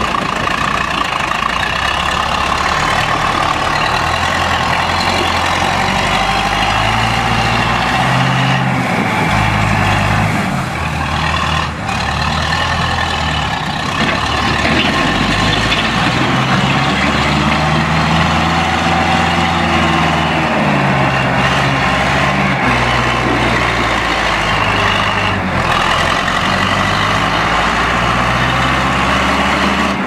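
John Deere 500C backhoe loader's engine running, its speed rising and falling as the machine drives across gravel and works the front loader.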